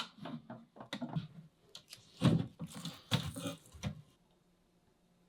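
Handling noises from a piece of wood being worked against glass: an irregular run of knocks and scuffs, two louder ones about two and three seconds in, then it goes quiet.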